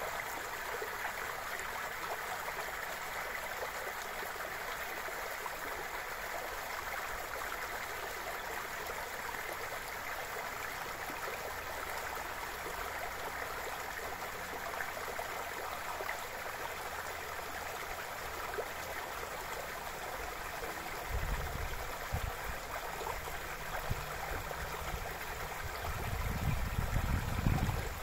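The Bzyb river running: a steady, even rush of flowing water. A low rumble comes in about three quarters of the way through and again near the end.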